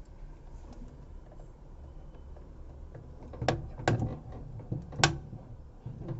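Sharp knocks and clunks of parts being fitted back into a top-load washing machine's tub: two close together, then a louder one about a second later.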